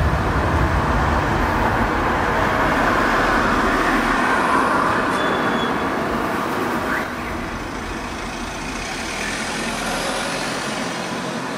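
City street traffic: a steady rumble of passing vehicles that eases off about seven seconds in, with another vehicle swelling past and fading near the end.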